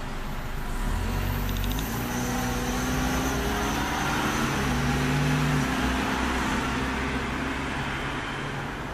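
A motor vehicle passing on the street: its engine rumble grows louder from about a second in, peaks around the middle, and fades near the end.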